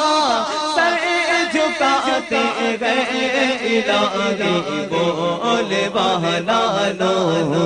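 Devotional naat chanting: voices singing a drawn-out, ornamented melodic line with no break.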